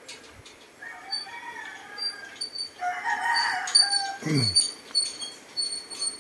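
A rooster crowing: one long call starting about a second in, loudest in the middle and ending in a falling note. Short high chirps repeat behind it.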